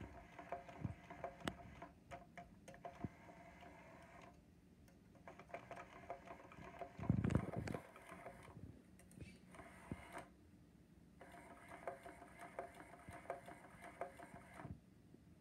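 Pounce electronic cat toy's small motor whirring in spells that start and stop, driving the feather wand around the track under its domes, with light plastic clicks. A brief louder low sound comes about seven seconds in.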